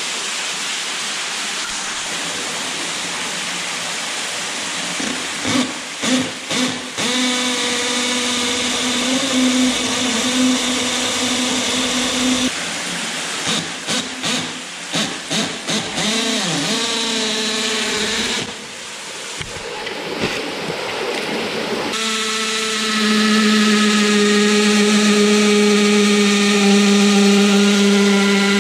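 Rushing water from a small waterfall at first, then a cordless drill boring an anchor-bolt hole into limestone. It starts with a few short trigger bursts, runs steadily in stretches, and gives a louder steady run through the last several seconds.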